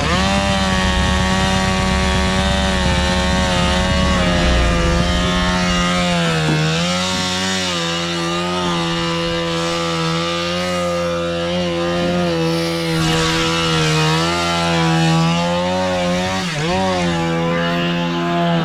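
Two-stroke chainsaw running at full throttle while cutting wood. Its pitch sags briefly under load twice, about a third of the way in and near the end, and it falls off right at the end. A lower engine drone underneath stops about four seconds in.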